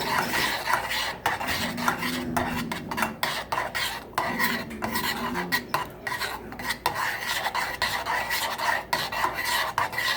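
A utensil stirring and scraping around a saucepan of thickening cornstarch and sweetened condensed milk, in quick, uneven strokes.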